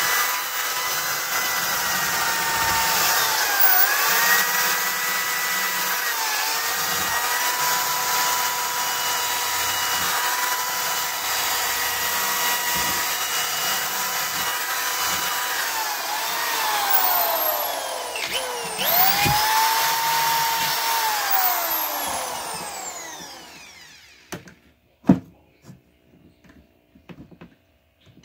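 A drill spinning a wire cup brush against a steel axe head: a steady motor whine that sags briefly a few times as the brush is pressed in. Its pitch winds down about two-thirds of the way through, picks back up, then spins down for good near the end, followed by a few sharp knocks.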